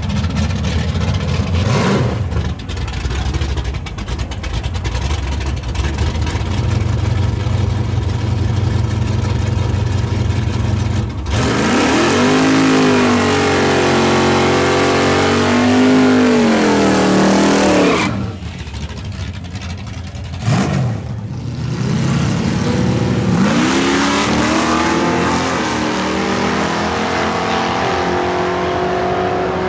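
Drag-racing car engines. A low rumble for about the first ten seconds, then an engine revs hard as a car accelerates, its pitch climbing and dropping with the gear changes. Another car's engine climbs again about two-thirds of the way through.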